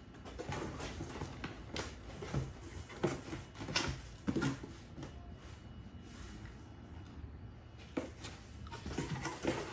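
Parts and their packaging being handled and unpacked: irregular rustling and scraping with light knocks and clicks, loudest a little after three and four seconds in.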